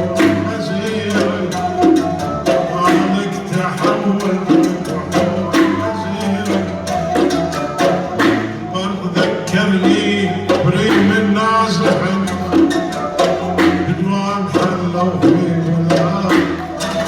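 Gulf sawt music: an ensemble playing with regular hand-drum strokes under sustained melodic instrument tones.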